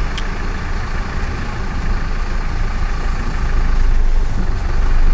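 Recovery truck's engine running with a steady low rumble, growing a little louder about four seconds in. A brief click sounds just after the start.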